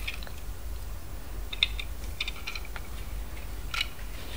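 Light clicks and taps of a plastic LEGO DUPLO toy airplane being handled, with a few scattered clicks between about a second and a half in and near the end.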